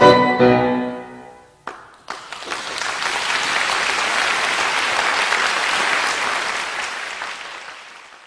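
The last chord of a cello-and-piano piece rings out and dies away over about a second and a half. About two seconds in, the audience breaks into steady applause, which fades out near the end.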